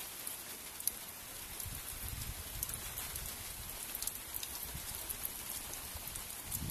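Steady rain falling, an even hiss with many single drops ticking close by.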